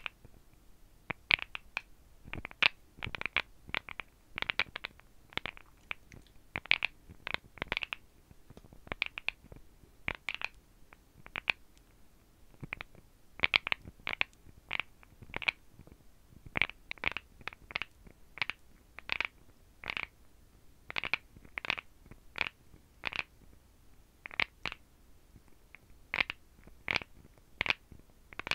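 Long fingernails tapping and clicking on the dry molars of an animal jawbone: irregular sharp clicks, single or in quick runs of two or three.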